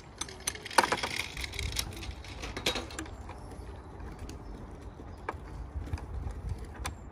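Ratchet socket wrench clicking in quick runs, busiest in the first three seconds and then only the odd click, as a newly fitted car battery's fittings are tightened.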